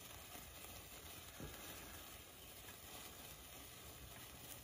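Faint, steady crackling sizzle of a No. 14 gold sparkler burning down its wire.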